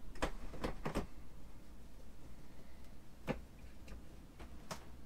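Spring-loaded retractable curtain roller being worked by hand. It gives three quick clicks and knocks at the start, then two single clicks later. The tension roller is not rolling properly, and the owner suspects staples caught in its springs.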